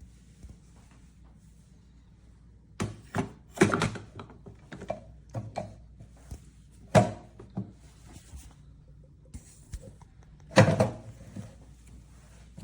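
A series of irregular thunks and knocks of hard objects being handled and set down. The loudest comes about ten and a half seconds in, after a cluster about three to four seconds in and another near seven seconds.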